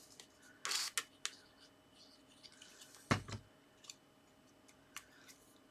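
Paper card being handled: a short rustle and scattered light clicks of cardstock pieces being placed and pressed down, with one dull thump on the work surface about three seconds in.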